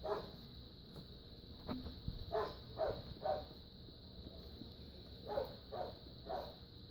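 A dog barking, faint: a single bark, then two runs of three short barks about half a second apart.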